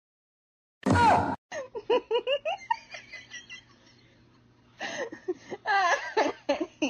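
A short loud cry about a second in, followed by a person laughing in two runs of short bursts.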